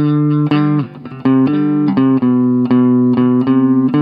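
Clean-toned Gibson Les Paul electric guitar playing a short melody harmonized in thirds, two notes sounding together and changing about every half second, with a brief break about a second in.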